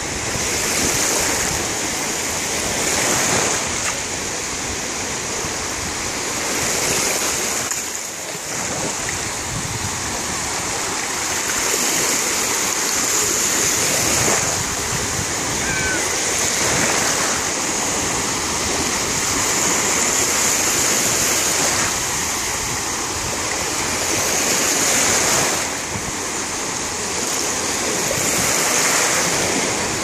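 Small Black Sea waves washing through the shallows: a steady rush of surf that swells and eases every few seconds.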